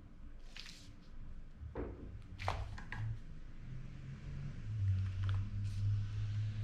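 Road bike's handlebar area creaking: a handful of short, irregular creaks and clicks, the creak the rider is tracking down. A low steady hum comes in past the middle.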